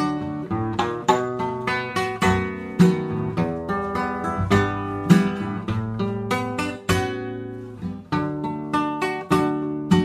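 Nylon-string classical guitar played alone, without singing: a steady run of plucked notes and chords, each ringing and fading, with a few fuller strummed chords that ring out longer.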